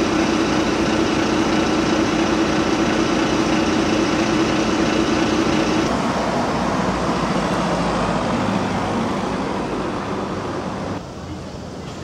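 City bus running close by with a steady engine drone, followed after about six seconds by general street traffic at a road junction.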